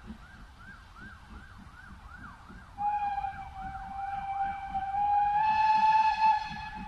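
A locomotive's whistle blows one long steady note, starting about three seconds in and growing louder near the end.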